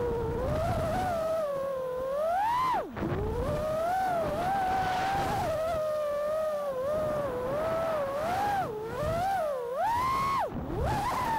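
A 6S freestyle FPV quadcopter's 1800KV brushless motors and propellers whine, the pitch rising and falling with the throttle, under a low wind rumble. The whine drops sharply about three seconds in, then climbs back and reaches its highest pitch near the end.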